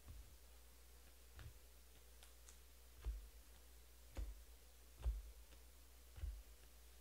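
Faint clicks and soft knocks, about one a second, each a brief low thud with a light tick on top. They are sparse at first and come more regularly and a little louder from about three seconds in.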